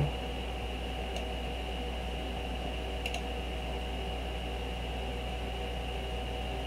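Steady electrical hum and hiss with a faint high whine, and a few faint clicks, about one second in and again about three seconds in.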